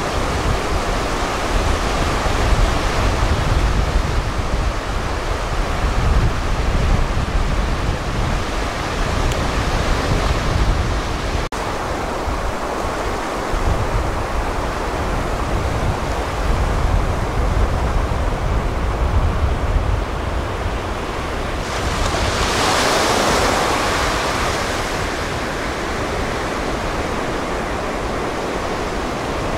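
Ocean surf on a sandy beach, a steady wash of breaking waves with strong wind buffeting the microphone in gusty low rumbles. A bigger wave breaks and washes in about three-quarters of the way through.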